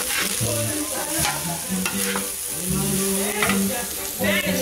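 Diced chicken sizzling on a flat steel griddle as a spatula stirs and turns it, with a few sharp scrapes of the spatula against the metal.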